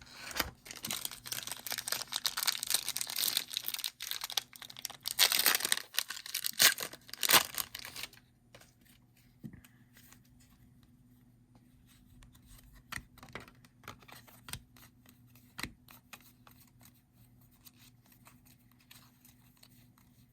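A foil trading-card pack wrapper being torn open and crinkled for about eight seconds, with several sharp rips. After that come faint scattered clicks and taps as the cards are handled.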